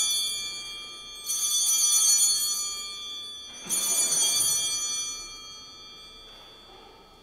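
Altar bells rung at the elevation of the chalice after the consecration. The ringing from one peal fades out, then two more peals come about a second and about three and a half seconds in, each ringing on and dying away.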